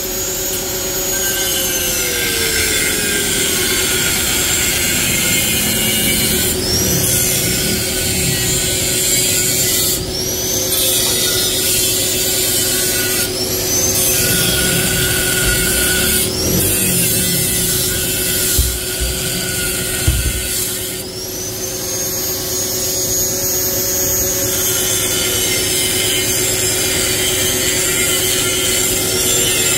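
Angle grinder with a cutting disc cutting through a steel motorcycle exhaust muffler, its whine sagging in pitch as the disc bites into the metal and climbing back each time the load eases, several times over. A couple of sharp knocks near the middle.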